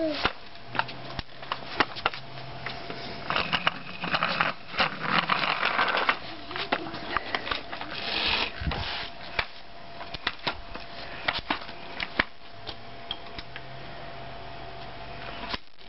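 Hard plastic wheels of a toddler's ride-on toy rolling over brick paving, with irregular clicks and knocks as they cross the joints and stretches of scraping.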